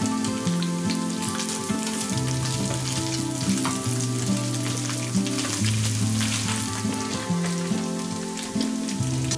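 Minced pork sizzling and crackling as it fries in a little oil in a pan, stirred now and then with a spatula. Background music with low, held notes plays underneath.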